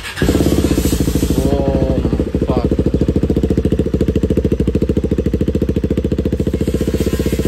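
KTM Duke 390 BS6 single-cylinder engine catching almost at once on its first start after the catalytic converter was removed, then idling with a steady rapid pulse. It is very loud through the stock exhaust with no dB killer fitted.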